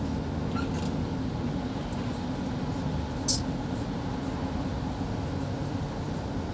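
Steady engine and road noise heard from inside a moving car, a low, even drone. A single brief high click sounds about three seconds in.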